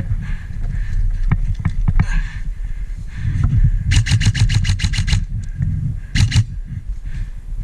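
Airsoft gun firing a rapid full-auto burst about four seconds in, around ten shots a second for just over a second, then a quick pair of shots a second later. Under it is a steady low rumble of movement and handling.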